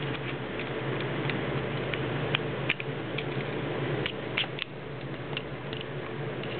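Irregular small clicks and taps of a kitten's claws and teeth on a metal pot as it plays in it, over a steady low hum.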